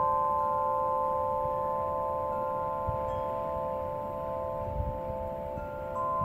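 Wind chime ringing in a breeze: several long, overlapping tones that slowly fade, with a fresh strike near the end. Low wind rumble on the microphone underneath.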